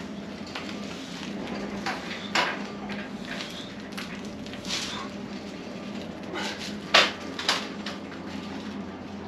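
Rusty old pickup truck being pushed by hand and rolling slowly: its loose sheet metal and bumper give several sharp metallic clanks and rattles, the loudest about seven seconds in, over a steady low hum.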